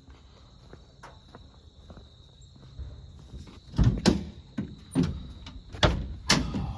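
A few quiet seconds with faint clicks, then four or five loud, irregular knocks and thumps from about four seconds in.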